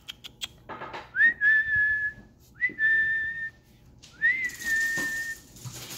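A person whistling three times to call puppies, each whistle a quick upward slide into a held note of about a second.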